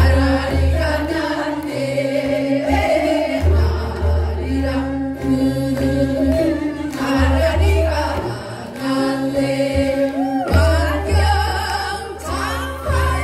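A group of women singing a Korean folk song (minyo) together into microphones, the sung melody gliding and holding notes, over an accompaniment with a low, pulsing bass beat.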